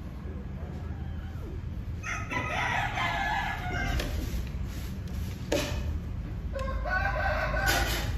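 A rooster crowing twice, two long pitched crows a few seconds apart, over a steady low hum.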